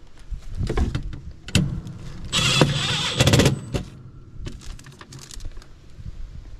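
Milwaukee Fuel cordless impact driver running screws into the sheet-metal panel of a heat pump package unit: two short spells of driving about halfway through, the second a rapid hammering clatter. A few light knocks from handling the screws and panel come before.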